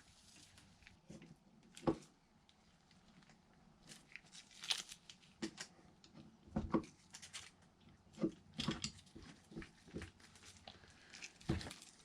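Scissors snipping through carbon fiber cloth: a series of short, irregular crunchy cuts, coming more often from about four seconds in.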